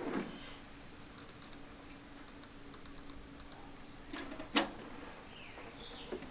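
Computer keyboard typing in short quick runs of key clicks, with one louder knock about four and a half seconds in.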